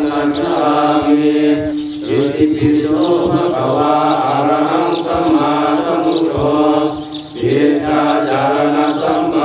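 Buddhist chanting in Pali, held on a nearly steady pitch, with short breaks about two seconds and seven seconds in.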